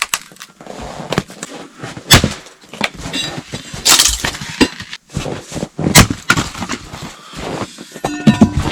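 Irregular sharp cracks, snaps and knocks, some in quick succession, with a short creak near the end.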